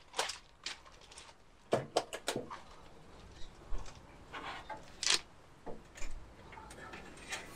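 Scattered metal clicks and knocks of a wire cooking rack being handled and slid into a Hark smoker cabinet as its metal door is opened, with a cluster of clinks about two seconds in and a sharper knock about five seconds in.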